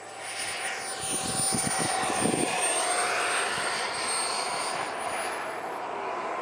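KingTech K-80 model jet turbine whining and rushing as the RC jet passes by. It grows louder over the first two seconds, peaks about two seconds in, and its tone slides slightly lower as it goes away.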